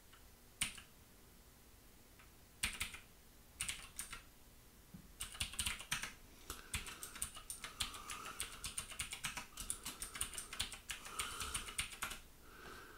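Typing on a computer keyboard: a few separate keystrokes in the first four seconds, then a run of quick, continuous typing from about five seconds in until shortly before the end.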